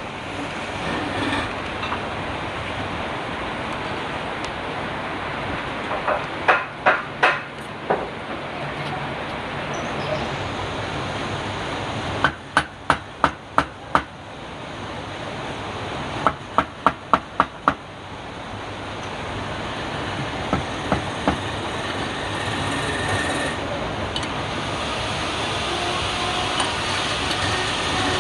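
Quick series of sharp knocking blows in groups of four to six, about three or four a second, over a steady background noise.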